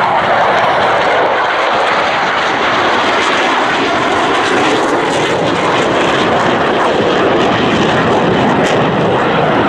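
KAI T-50B jet trainers, each powered by a single General Electric F404 turbofan, flying past in close formation. Their jet engines make a loud, steady roar.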